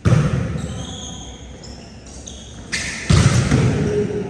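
A volleyball being hit hard: one sharp smack right at the start, then two more hits close together about three seconds in, each ringing on in a large echoing hall. Short high squeaks come between the hits.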